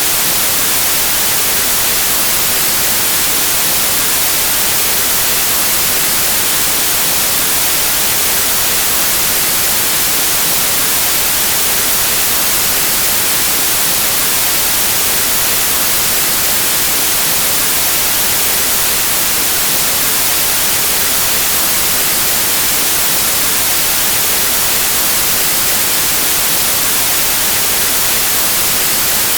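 Steady white noise: an even, unchanging hiss of static, brightest in the high end, with no other sounds.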